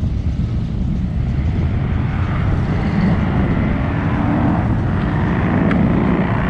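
Loud, steady exhaust rumble of custom show vehicles driving slowly past at low speed.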